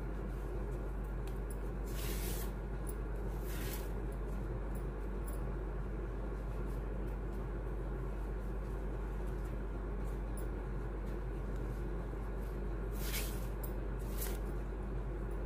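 Ribbon rustling in four brief swishes as it is wrapped around a bangle, about two and three and a half seconds in and twice near the end, over a steady low hum.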